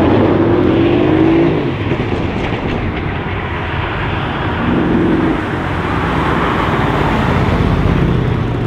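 Tuned Mercedes CLS63 AMG twin-turbo V8 running loud under acceleration, its engine note rising through the first second and a half, then swelling again near the middle and toward the end.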